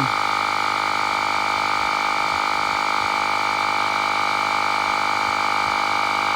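Portable electric tire inflator's compressor running steadily while pumping a tire past 30 psi, a loud, even drone with a fixed pitch.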